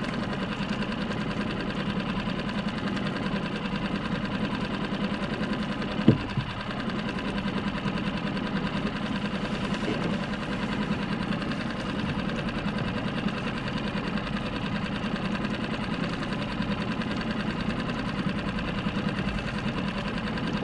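Mercury 6 hp outboard motor on a small skiff running steadily at low speed. A single sharp knock sounds about six seconds in.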